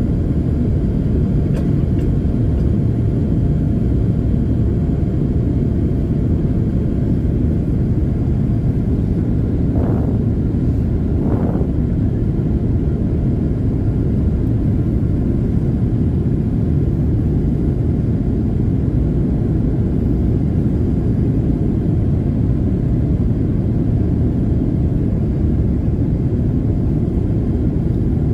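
Steady low roar inside the cabin of a Boeing 787-8 in flight, from its two GEnx-1B turbofans and the airflow, heard from a window seat over the wing.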